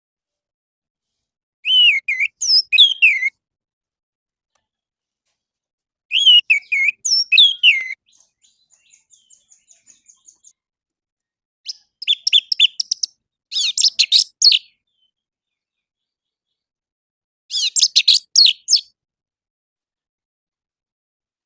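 Orange-headed thrush singing: short phrases of quick, looping whistled notes, separated by pauses of a few seconds. A faint run of rapid repeated notes follows the second phrase, and the later phrases are fast trills.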